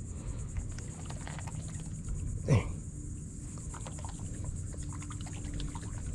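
Steady high-pitched insect buzzing over a low rumble of wind, with light scattered ticks and rustles of a rope line being pulled in hand over hand. About two and a half seconds in, a short grunt from a man, falling in pitch.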